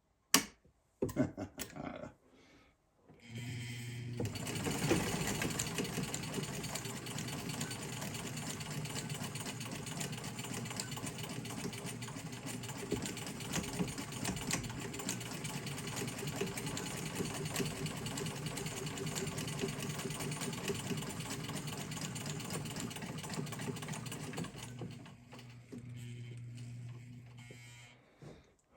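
Electric sewing machine stitching a seam in quilt pieces. It runs steadily for about twenty seconds after a few clicks of handling at the start, drops to a quieter hum near the end, and is followed by a couple more clicks.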